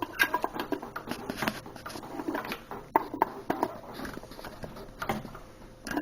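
Irregular clicks and knocks of a plug being fumbled against a voltage converter's socket, failing to go in.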